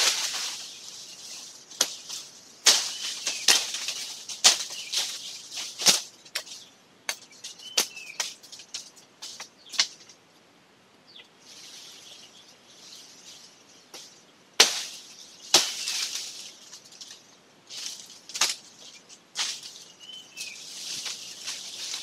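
Leafy branches rustling and swishing in bursts, with many sharp snaps and clicks of branches being cut with hand pruning shears. It goes quieter for a few seconds about halfway through, then resumes with two loud snaps.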